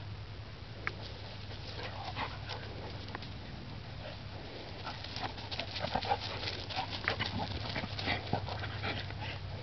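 Two dogs, a Bouvier des Flandres and a Catahoula leopard dog, play-wrestling: a rapid, irregular run of short, rough dog noises and breathing that gets busier in the second half.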